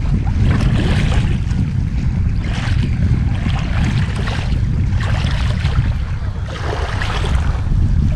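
Wind buffeting the microphone in a steady low rumble, with small waves washing against the lakeshore in a hiss that swells and fades.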